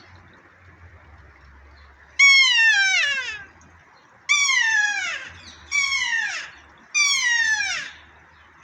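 Kea, the New Zealand mountain parrot, squealing like an air horn: four loud calls, each about a second long and sliding down in pitch, the first about two seconds in and the rest coming every second or so.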